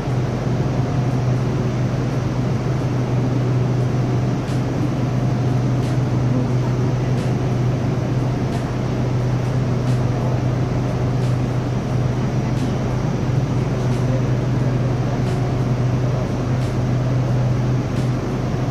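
SRT Red Line electric commuter train running between stations, heard from inside the carriage: a steady low hum and rumble, with faint light ticks about every second and a half.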